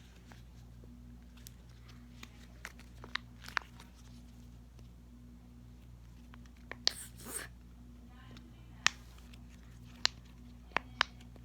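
Bubbles of a silicone pop-it fidget toy being pressed through one at a time, giving sharp, irregular pops, about a dozen in all, described as really good pops. A brief rustle of handling comes about midway.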